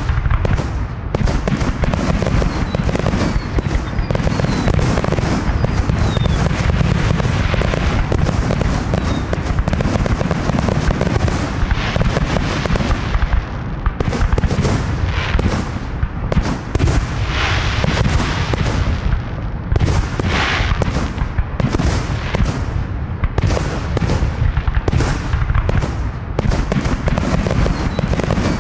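Fireworks display: a rapid, nearly unbroken run of aerial shell launches and bursts banging one after another, with stretches of crackling hiss at several points in the middle.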